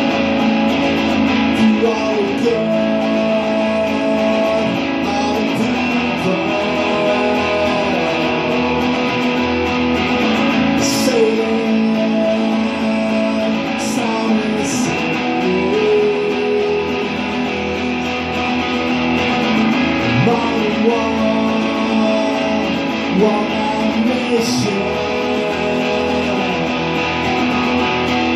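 A man singing to his own electric guitar, the guitar played steadily under a melodic vocal line.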